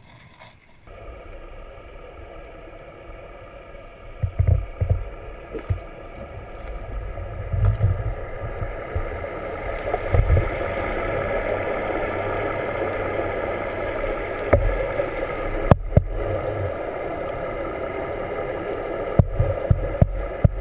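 Muffled underwater sound as a camera is plunged into the sea beside a boat: a steady hum with several fixed tones from the boat's machinery carried through the water, with low thumps and gurgles of water buffeting the housing. The sound jumps up about a second in as the camera goes under.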